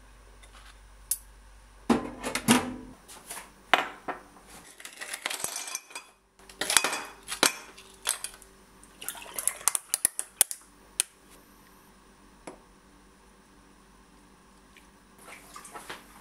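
Kitchen clatter of metal tongs and a ceramic plate: a string of sharp clicks and clinks as small cakes are lifted and set down. It goes quieter after about eleven seconds.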